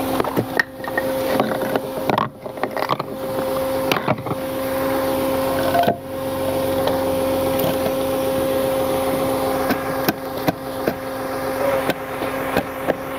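Wooden cribbing blocks knocking together several times as they are set under a car's wheel, over the steady hum of the tow truck running.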